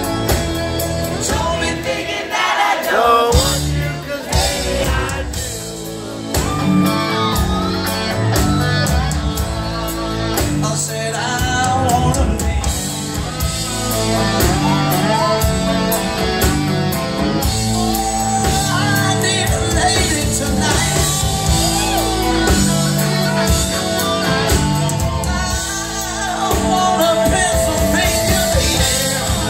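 Live rock band playing a song with electric guitars, keyboards and drums, heard through the PA from the audience in a large hall.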